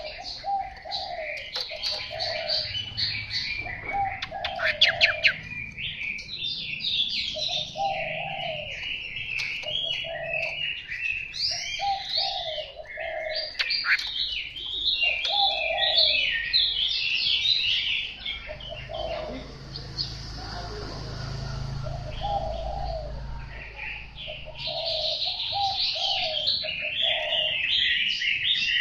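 Chinese hwamei singing a long, loud run of quick, varied whistled phrases, breaking off for a few seconds about two-thirds of the way through before starting again. Under the song a short low coo-like note repeats about once a second.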